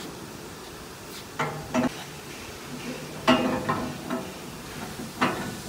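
Steel clamp-on pallet forks being moved by hand: a series of metal clanks and knocks with a brief ring, the loudest about halfway through.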